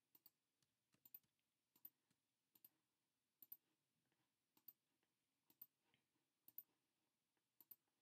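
Faint computer mouse clicks, mostly in quick pairs about once a second.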